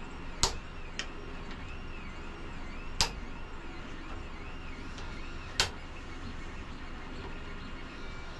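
Sharp metal knocks and clicks as the platen is fitted and tightened on a 2x72 belt grinder: three loud ones a couple of seconds apart and a few lighter taps, over a steady shop hum.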